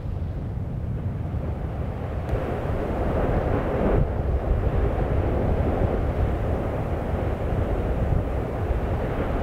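Steady low rumbling roar of an erupting Icelandic volcano, growing somewhat louder and fuller from about two seconds in.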